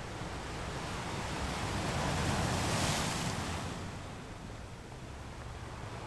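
Sea waves on a beach: a wave swells and breaks, loudest about halfway through, then washes back and fades. Beneath it runs a steady low rumble of surf.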